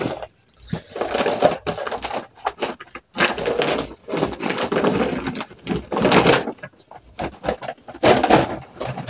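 Rustling of a duvet and a bag being handled for packing, with the bag shaken out, in irregular bursts with short pauses.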